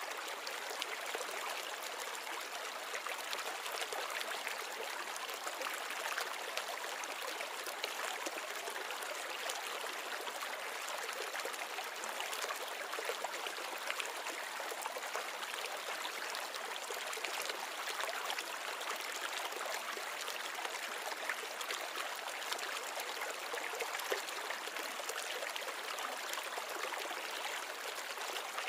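Steady trickle and splash of water circulating in a small glass-bowl nano reef aquarium, with a fine, continuous crackle.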